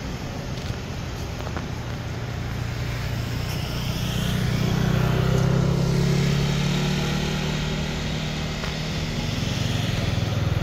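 A motor vehicle's engine passing: a low drone that swells to its loudest about five seconds in and fades away, with another starting to build near the end.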